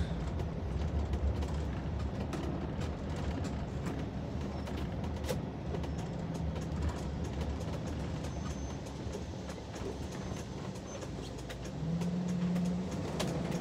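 Engine and road noise inside a moving vehicle's cabin: a steady low hum with light rattles, the engine note growing louder near the end.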